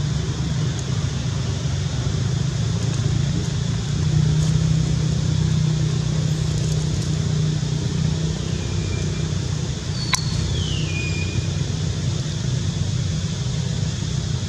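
A steady low engine drone, like a motor vehicle running nearby. About ten seconds in there is a sharp click followed by a short, high chirp that falls in pitch.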